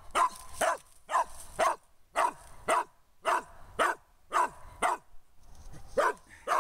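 A squirrel dog barks up a tree at a squirrel in a steady run of short, sharp barks, about two a second, pausing briefly about five seconds in. This is the chop of a dog treeing a squirrel.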